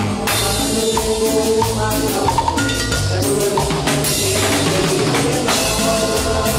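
Live band music with a steady beat on drum kit, an electric bass line and keyboard.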